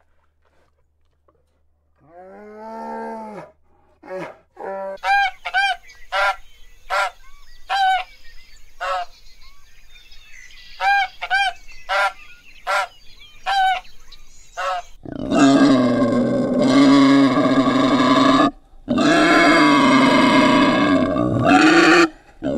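Animal calls: a few scattered calls, then short calls about once a second, then from about 15 s a much louder continuous calling that breaks off briefly once.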